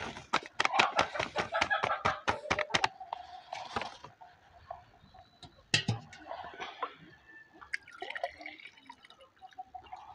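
Paper flour bag crinkling with rapid rustles and clicks as baking flour is shaken out into a plastic bowl, then a single knock near six seconds as the bag is set down on the wooden table. In the latter part, water is poured from a metal kettle into a drinking glass.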